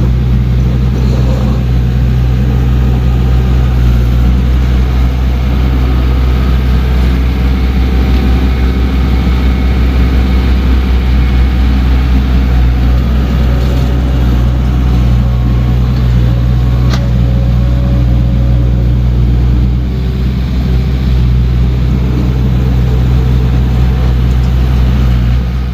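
Diesel engine of a small earthmoving machine running steadily under work, with a single sharp knock partway through.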